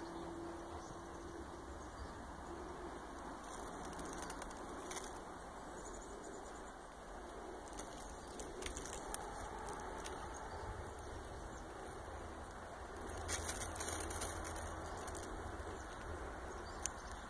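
Young North American beaver gnawing and chewing bark off a branch: short spells of crisp crunching and teeth clicks, loudest a little past the middle, over a steady background hiss.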